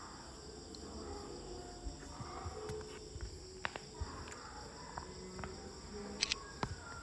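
Faint steady high-pitched trilling over a low background rumble, with several short sharp clicks near the end.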